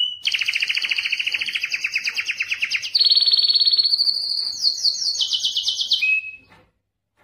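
Male domestic canary singing in breeding condition: a run of fast, high trills, each a rapid repeat of one note, switching to a new trill about every second. The song stops abruptly about six and a half seconds in.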